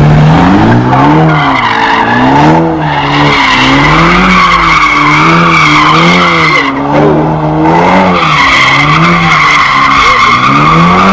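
A car spinning donuts with continuous tyre squeal. The engine revs rise and fall about once a second as the throttle is worked to keep the rear tyres spinning.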